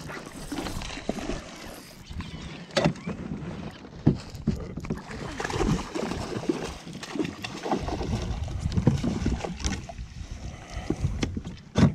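A hooked bass splashing and thrashing at the water's surface beside a kayak and being scooped up in a landing net, with water sloshing and several sharp knocks.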